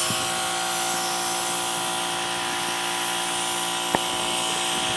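Compressed air hissing steadily from an air blow gun over the hum of a running air compressor, blowing water and bad gas out of a lawn tractor's gas tank and fuel lines. A single sharp click about four seconds in.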